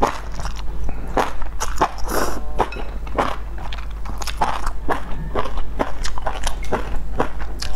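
Close-up eating sounds: enoki mushrooms from a chili broth being slurped in and chewed, a quick irregular run of wet clicks and crunches.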